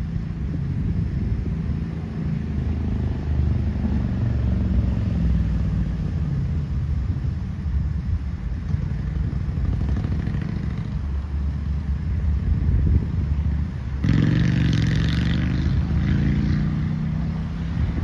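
A motor running steadily, a low rumble that becomes louder and brighter for about three seconds near the end.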